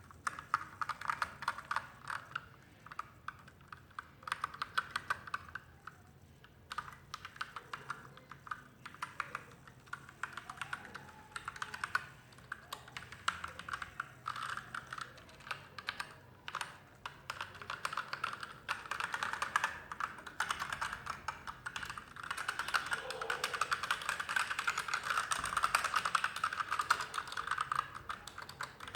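Typing on a Magegee MK-Star 87-key mechanical keyboard with red linear switches: a fast run of key clacks with a few short pauses, becoming steadier and denser in the second half.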